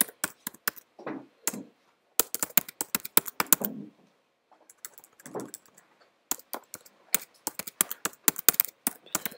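Rapid keystrokes on a computer keyboard in quick bursts with short pauses: a passphrase being typed in.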